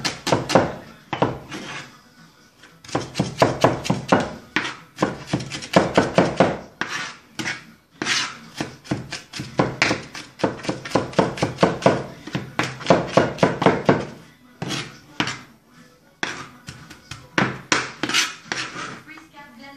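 Chef's knife rapidly chopping onion on a plastic cutting board: quick knife strikes in bursts of several per second, broken by short pauses.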